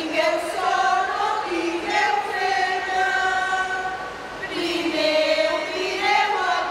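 Women's choir singing together unaccompanied, holding long notes that slide from one pitch to the next.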